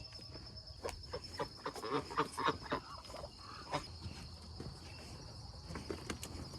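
Insects, likely crickets, keep up a steady high-pitched trill, with scattered faint short clicks and rustles.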